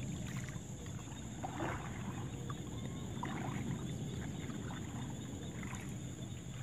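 A paddle dipping and pulling through calm pond water beside a small wooden canoe, with soft splashes several times.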